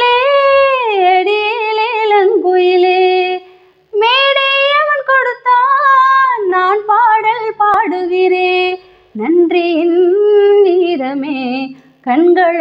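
A woman singing a Tamil song solo, unaccompanied, holding long ornamented notes in several phrases with short breaths between them.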